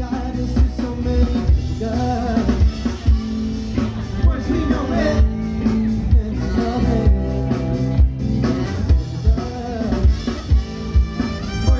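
Live band playing: a vocalist singing over a drum kit and bass, with a steady beat.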